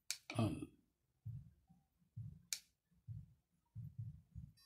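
Sharp clicks of the power button on an Aochuan Smart XE gimbal handle being pressed to switch it on: one at the start and another about two and a half seconds later. Soft low bumps of the handle being held come in between.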